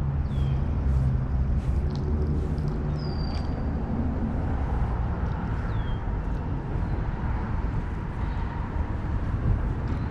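Steady low rumble, tagged as vehicle noise, with a bird calling over it: a short high whistle that falls in pitch, given about every three seconds.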